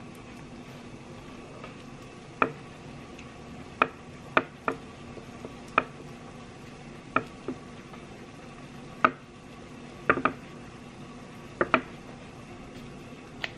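About a dozen sharp, irregular taps of a small kitchen knife against a wooden cutting board as soft bread rolls are sliced open, some in quick pairs, over a steady low hum.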